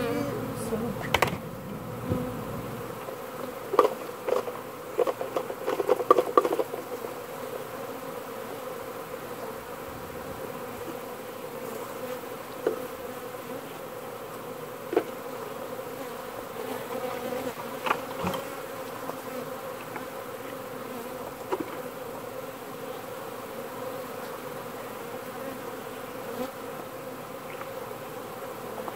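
Steady, dense buzzing of a large mass of airborne honeybees, stirred up as vacuumed bees are dumped into a hive. A series of sharp knocks comes about four to six seconds in, with a few single knocks later.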